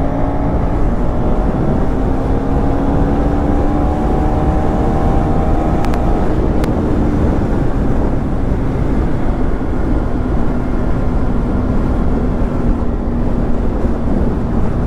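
KTM 390 Duke (third generation) single-cylinder engine pulling in fifth gear, its note rising gently for about six seconds as the bike speeds up, then softening as it eases off. Heavy wind rush is mixed in.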